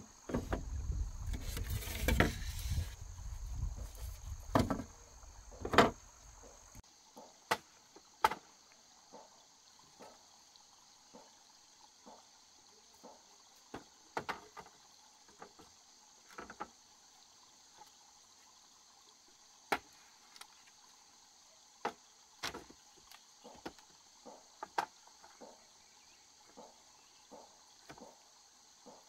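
Scattered short knocks and clicks over a steady high insect chorus. A low rumble runs under the knocks for the first seven seconds or so, then stops.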